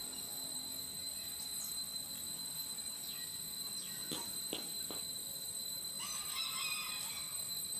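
Forest ambience: a steady, high-pitched insect drone with birds calling over it. There are a few quick downward-sliding calls between four and five seconds in, and a short burst of chirping about six seconds in.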